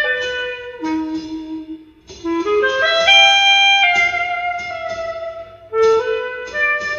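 Jazz film-score music: a reed instrument plays a melody in short rising phrases, with a long high note about three seconds in.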